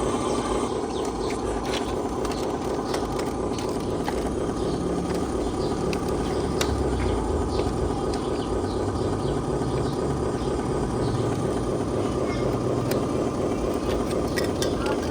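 Radio-controlled model trucks driving, their small electric motors and gearboxes running with a steady mechanical whir.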